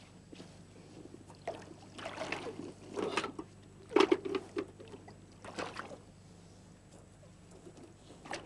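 Shallow water splashing and sloshing as people wade and lift a wet weigh sling holding a carp, in a few irregular bursts, loudest about three and four seconds in.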